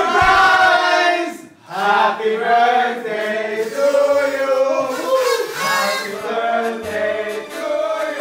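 A group of voices singing together in a choir-like blend, starting suddenly at the outset, breaking off briefly about a second and a half in, then carrying on.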